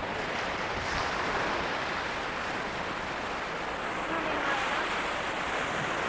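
Steady wash of sea surf on a beach, with some wind on the microphone and faint voices in the distance.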